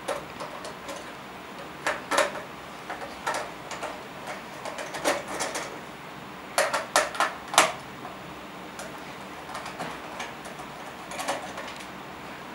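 A small screwdriver turning out the back-cover screws of a plastic Orpat timepiece case: irregular clicks and short scrapes of the tool on the screw heads and plastic, in scattered clusters, the loudest a quick run of clicks about seven seconds in.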